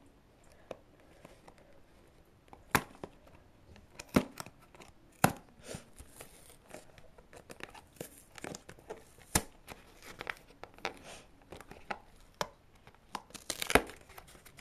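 Screen protector packaging being opened by hand: crinkling and tearing, with several sharp snaps and clicks scattered irregularly, the loudest near the end.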